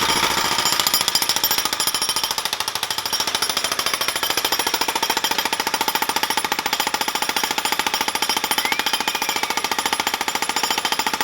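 Jackhammer pounding in a rapid, steady rhythm, breaking up concrete.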